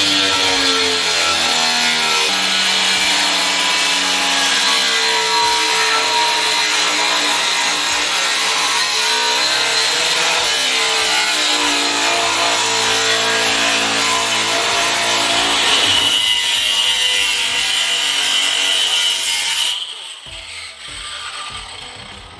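Angle grinder cutting a disc out of sheet steel, loud and continuous, with a high whine and a motor pitch that wavers as the wheel is loaded. The high whine drops a little in pitch about 16 s in, and the grinding stops about 20 s in.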